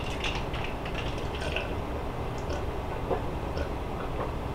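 A person drinking from a plastic tumbler: faint sips, swallows and cup handling over a low steady room hum.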